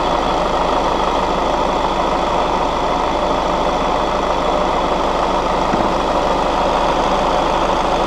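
Seat Leon's 2.0 TDI four-cylinder diesel engine idling steadily, heard up close from the open engine bay, with the air conditioning running to take in refrigerant.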